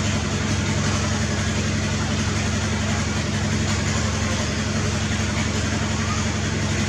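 A motor running steadily, a constant low hum with an even background hiss.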